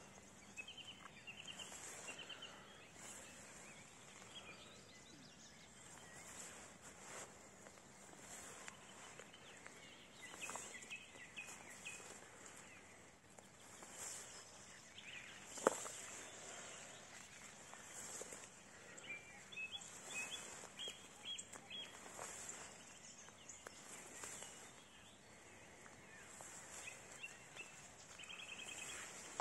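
Footsteps swishing through tall meadow grass, faint and uneven, with small birds singing short quick trills now and then in the background. One sharp click about halfway through stands out as the loudest sound.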